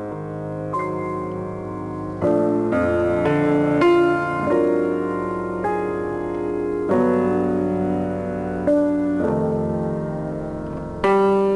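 Slow solo piano music, chords struck about a second or two apart and left to ring and fade.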